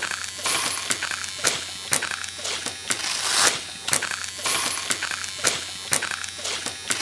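Mechanical ratcheting clicks, sharp and roughly twice a second, among rasping, scraping noise over a steady low hum.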